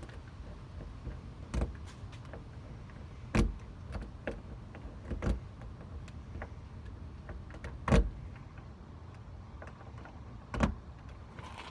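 Scattered metallic clicks and knocks from tools working the lock of a tight, corroded Weiser doorknob, with five louder knocks spaced a couple of seconds apart.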